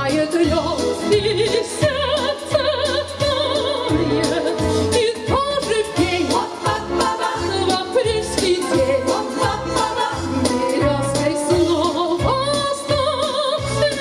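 Women's vocal ensemble singing with vibrato over an instrumental accompaniment with a steady bass beat.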